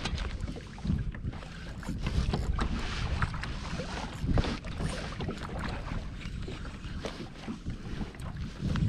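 Wind on the microphone, with water lapping against a sit-on-top fishing kayak; a rumbling, gusty noise with scattered small knocks.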